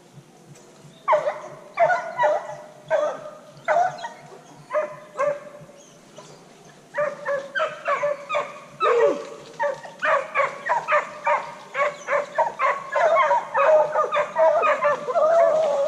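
Hunting hounds giving tongue on the trail of a wild boar: single barks about every half to three-quarters of a second at first, then from about seven seconds in quicker, overlapping barking from several dogs.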